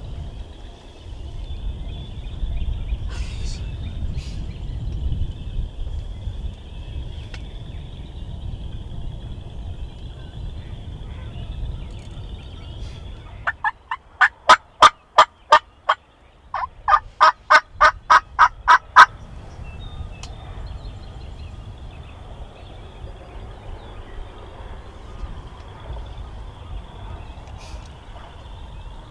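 Turkey yelping: two loud series of pitched yelps, about seven notes and then eight at roughly three a second, in the middle of a steady low rumble.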